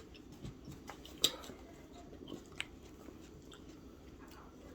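Close-up chewing and mouth sounds of a person eating pork and rice soup. There is a sharp click about a second in and a smaller one about two and a half seconds in.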